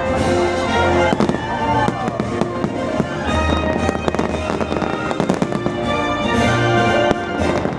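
Fireworks going off in quick succession, many sharp bangs and crackles over the show's music.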